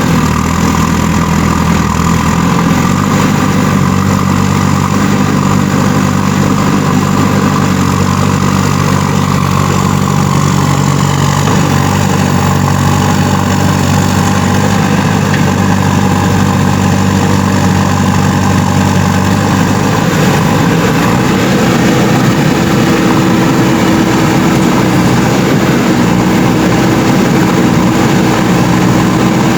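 Backhoe loader's diesel engine running steadily with a low hum. About two-thirds of the way through the lowest tones drop away and a higher steady tone takes over, as the engine's note changes.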